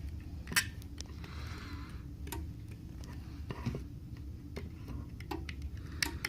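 Small tool picking and scraping at a Samsung Galaxy S4's front frame to clear off leftover broken glass and adhesive: a few irregular sharp clicks and ticks, with a short scrape about a second in, over a steady low hum.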